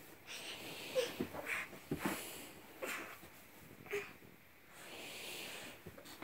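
Soft breathy huffs and short grunts from a toddler straining as he climbs up onto a glider chair, coming a few times a second or so apart, with one longer breathy exhale near the middle.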